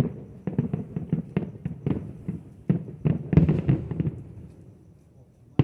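Fireworks going off: a sharp bang, then a quick run of pops and crackles that fades out about four and a half seconds in, and another sharp bang at the very end.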